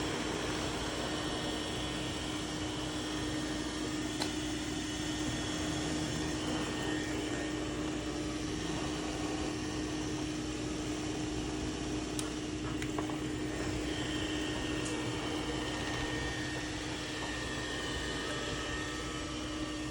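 Robot vacuum cleaner running: a steady motor and fan noise with a constant hum, and a few faint clicks and knocks.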